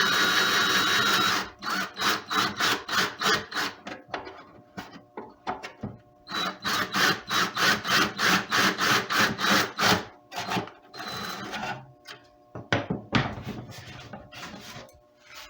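Electric drill boring a hole through a wooden acoustic guitar side: the motor runs steadily with a whine for about a second and a half, then in short rapid pulses, about three a second, until around two-thirds of the way through, then fainter scattered handling.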